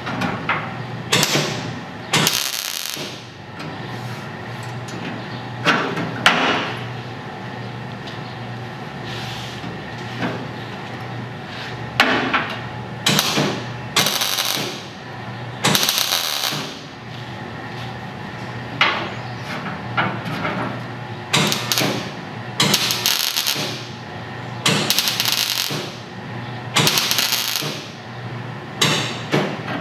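MIG welder laying a series of short tack welds on a pickup cab's sheet-steel roof: about eighteen short arc bursts, each lasting about a second, some in quick pairs. A steady low hum runs underneath.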